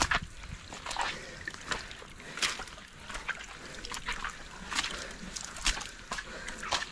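Footsteps on a wet, muddy trail, splashing and squelching in an irregular rhythm of about two steps a second.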